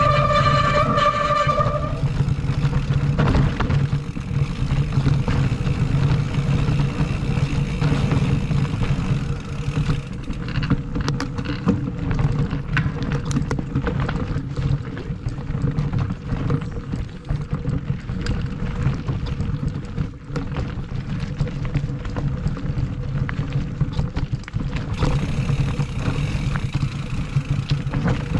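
Mountain bike riding a dirt singletrack, heard from a camera mounted on the bike: a steady rumble of knobby tyres and wind, with a short high squeal in the first two seconds. From about ten seconds in, the bike clatters and rattles over roots and stones.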